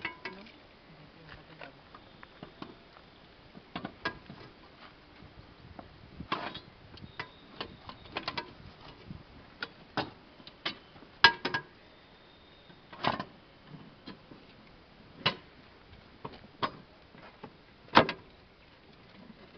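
Irregular metallic clicks and clanks from a steel pipe-joining clamp as its lever is worked to draw two double-wall corrugated HDPE pipes together at the joint, with a few louder knocks in the second half.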